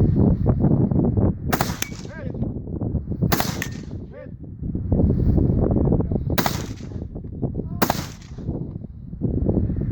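Four single rifle shots from a custom Colt AR-15, spaced one to three seconds apart, with a loud low rumble between the shots.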